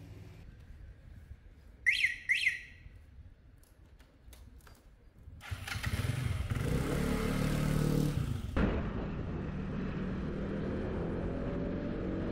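Two quick rising chirps and a few clicks, then a motor scooter starts up about five seconds in and runs with a low hum. The sound then changes abruptly to a steady ride: road and wind noise under a faint hum that rises slowly in pitch as it speeds up.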